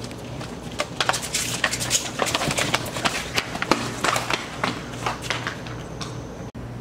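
A scuffle: a quick, irregular run of sharp knocks and hits over a steady low hum, dying away after about five seconds.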